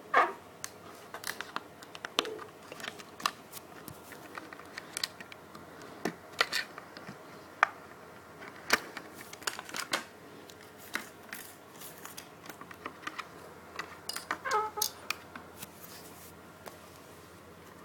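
Hands handling and opening a Hot Wheels die-cast car's packaging: irregular clicks, crinkles and short scrapes of plastic and card, with a brief flurry of them about two thirds of the way through.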